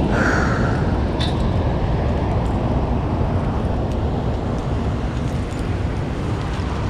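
Steady rush of water pouring through a dam's open spillway gates and churning below them. A short squeak sounds at the very start, and a sharp click about a second in.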